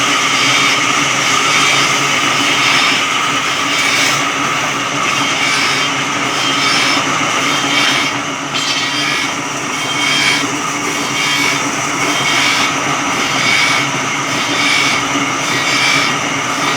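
Electric sawmill saw running through a log: a loud, steady mechanical whine and rasp that pulses evenly, a little under twice a second.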